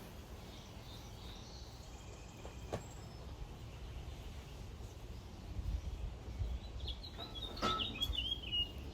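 Wild songbirds chirping, with a quick twittering run of chirps near the end and fainter chirps about a second in, over a low steady rumble of breeze. Two light clicks, about three and eight seconds in.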